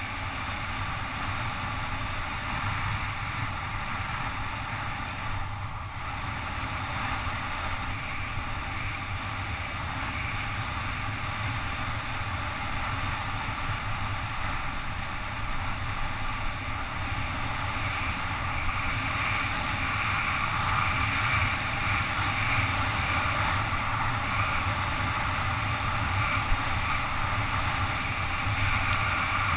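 Steady wind rush over a helmet-mounted action camera during a fast bicycle descent, mixed with tyre and road noise on wet asphalt, growing somewhat louder in the second half.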